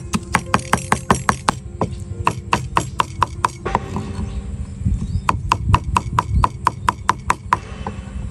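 Kitchen knife chopping on a cutting board in rapid, even strokes, about five a second. The chopping pauses for a second or so about four seconds in, then resumes and stops near the end.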